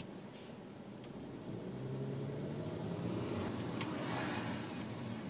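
Car engine heard from inside the cabin, getting louder as the car accelerates about a second and a half in, with a brief rush of road noise around four seconds in.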